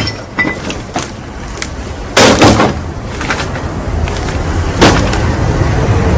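A few loud thumps and crashes of garbage bags being thrown down on a wooden deck. The loudest comes about two seconds in, and another near five seconds.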